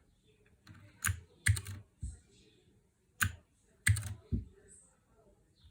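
Mechanical keyboard with clicky blue switches, its keys pressed one at a time: about six sharp clicks, each with a low thud, spaced out over a few seconds.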